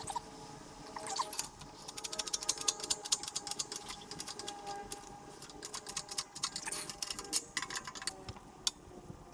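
Runs of rapid light metallic clicks in bursts of a second or two with short pauses, typical of a ratchet wrench being cranked back and forth to drive a bushing press while a toe link bushing is pressed in until it seats on its lip.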